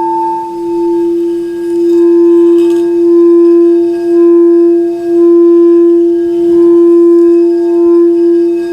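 Singing bowl ringing one steady low tone with fainter overtones above it. The tone is kept sounding throughout and swells and ebbs about once a second, while a higher ring left from the strike fades out in the first second.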